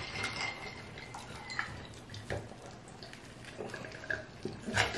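Quiet, wet eating sounds: chewing of juicy steak and sips from a glass, with scattered light clicks of cutlery on the plate.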